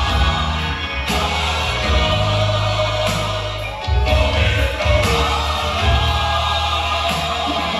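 Hip-hop instrumental beat with a heavy bass line and a sampled choir-like sung vocal, played loud.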